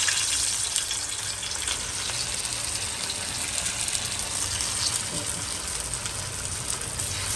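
Masala-coated bangda (Indian mackerel) sizzling in hot oil on an iron tawa as the fish are laid in one by one. The sizzle is loudest at first, then settles to a steady hiss.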